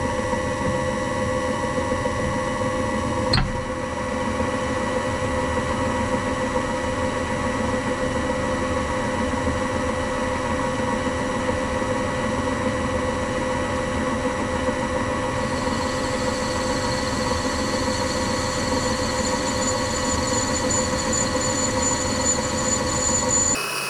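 A small workshop machine tool's motor running steadily with a hum and whine, a sharp click about three seconds in, and a higher-pitched whine joining about two-thirds of the way through.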